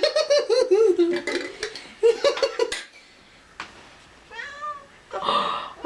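Seven-month-old kitten meowing several times in a deeper, grown-up meow rather than a tiny mew, begging for food.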